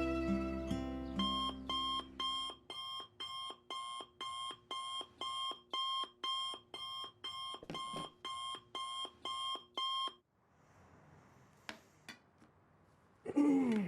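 Electronic alarm clock beeping in a steady, evenly spaced pattern of about two and a half beeps a second, as a wake-up alarm, cutting off about ten seconds in. Violin music fades out at the start; near the end a couple of faint clicks come, then a short voice sound falling in pitch.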